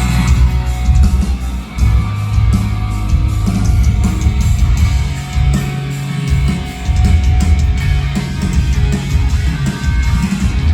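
Rock band playing an instrumental intro: electric guitar over a heavy bass line and beat, with no singing yet.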